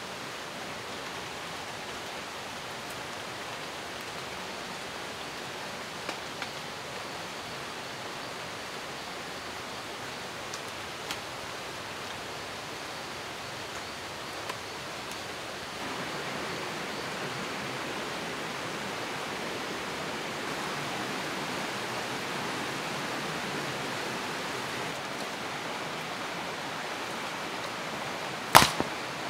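Steady rushing of a forest stream, getting louder about halfway through, with a few faint clicks and a sharp double knock near the end.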